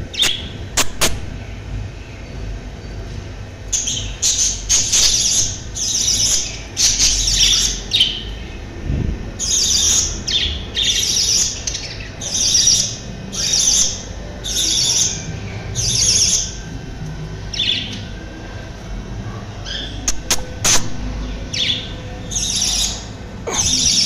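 Young parrot chick making shrill begging calls to be fed, short squawking calls repeated about one or two a second in long runs. A few sharp clicks fall among them.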